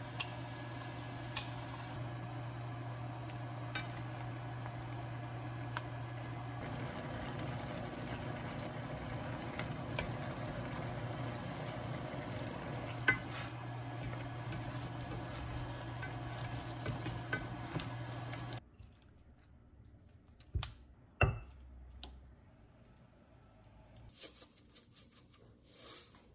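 Food sizzling in a pan while being stirred, with occasional sharp clicks of a utensil against the pan, over a steady low hum. About two-thirds of the way through the hum and sizzle cut off suddenly, leaving a few light knocks.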